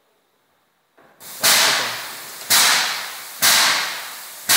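Airless paint sprayer running while spraying epoxy floor paint: after a silent first second, its pump cycles with a loud hissing rush about once a second, each starting sharply and fading away.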